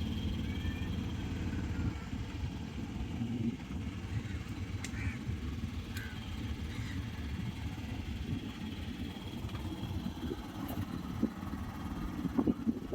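Boat engine running steadily, a low rumble, with a few faint high chirps above it.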